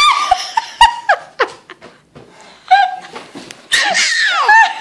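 People laughing and squealing in short bursts, with a long falling shriek near the end. A sharp knock sounds about a second in.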